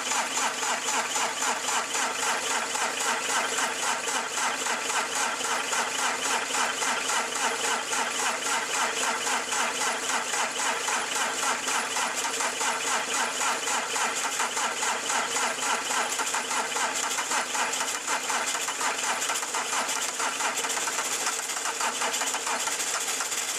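Turbo-diesel engine running steadily with a rapid, even clatter, its speed held by hand at the rotary injection pump's throttle lever.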